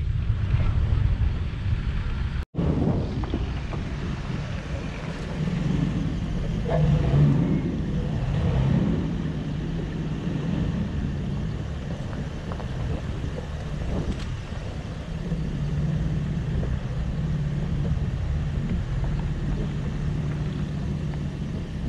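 Toyota FJ Cruiser's 4.0-litre V6 running as it drives off-road over rough ground, a steady low rumble with wind on the microphone. The sound drops out for an instant about two and a half seconds in.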